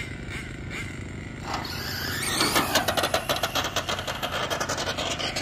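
Radio-controlled drag car launching and running down the strip: a rush of noise builds about a second and a half in and becomes a fast, rattling pulse about a second later, easing off near the end.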